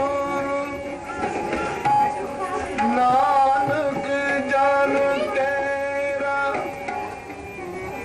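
Two harmoniums playing held notes of a melody in Raag Maligaura, with tabla accompaniment.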